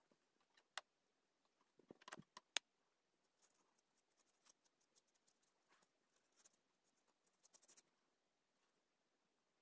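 Faint scratching of a felt-tip marker tip rubbing on paper in short strokes as it colours, with a few soft clicks and taps about two seconds in.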